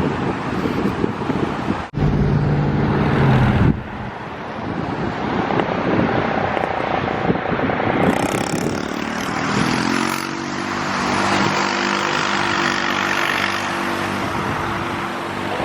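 Road traffic passing close by: car engines and tyre noise. Around ten seconds in, one vehicle's engine note rises and then holds steady.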